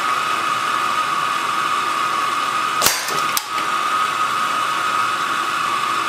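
Propane torch burning at full flame, a steady loud hiss. About three seconds in come two sharp cracks about half a second apart: the .177 air rifle shot at a nearly empty butane lighter, which gives only a flicker and no burst.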